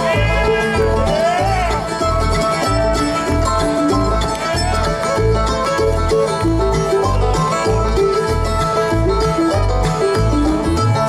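Bluegrass band playing the instrumental opening of a song live: banjo to the fore over guitar and a steady, even bass beat, with a few sliding notes in the first two seconds.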